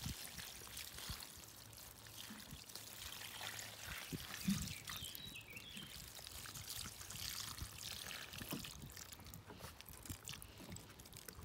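Water pouring from a plastic watering can's spout onto the leaves and soil of a potted plant, a continuous splashing trickle. A soft thump sounds about four and a half seconds in.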